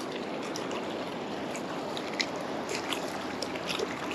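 Shallow ocean surf washing over sand, a steady hiss of moving water with the foam fizzing in many small scattered pops.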